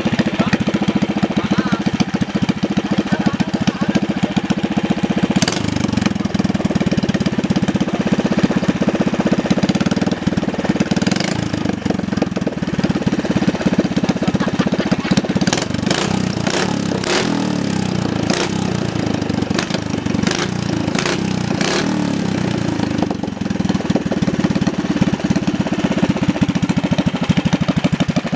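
Ketinting longtail boat engine running steadily on a test run, with a string of sharp clicks or knocks over it about halfway through.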